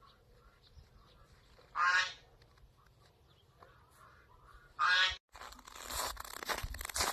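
Two loud calls from farmyard fowl, about three seconds apart. Just after the second, a dense rustling, crackling noise starts and carries on.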